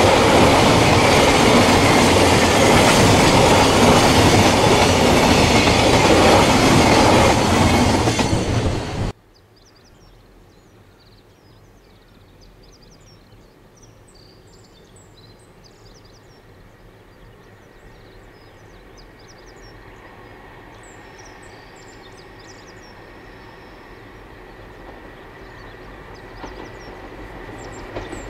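Container freight wagons running past close by, a loud, steady rolling rumble of wheels on rail. About nine seconds in it cuts off suddenly, leaving a much quieter outdoor scene with faint high chirps, as the sound of an approaching train slowly grows louder.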